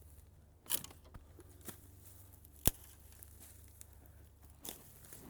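A few scattered crunches and crackles of footsteps on dry leaves and twigs, with one sharp snap about two and a half seconds in.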